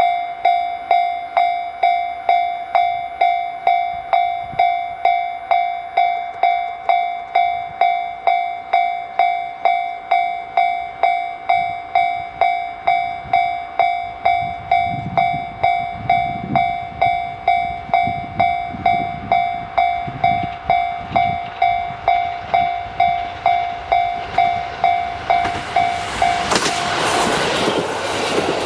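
Level-crossing alarm bell ringing with a steady electronic ding, just under twice a second, while a JR Kyushu KiHa 183-1000 diesel railcar approaches, its engine rumble growing from about halfway. Near the end the train reaches the crossing and a loud rush of engine and wheel noise takes over from the bell.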